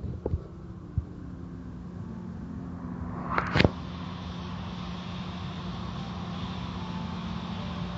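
Automatic car wash heard from inside a car: a steady mechanical hum with water spraying over the glass, a couple of sharp knocks in the first second, and a brief louder burst about three and a half seconds in.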